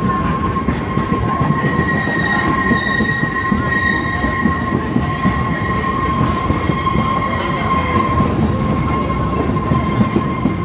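Passenger train rolling along the track with a steady rumble of wheels on rail, and a continuous high-pitched wheel squeal held throughout, with a second, higher squealing tone joining about two seconds in.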